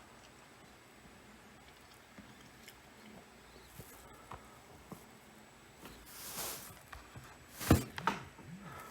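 Mostly quiet room tone with a few faint ticks, a soft breath-like hiss about six seconds in, then a single sharp knock near the end.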